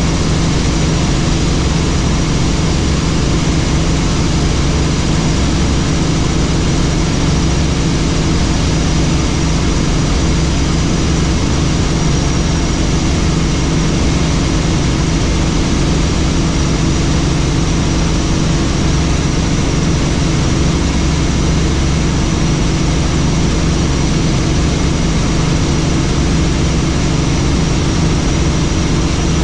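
Helicopter in flight: the steady, loud drone of its engine and rotor, unchanging throughout, with a few steady tones held within it.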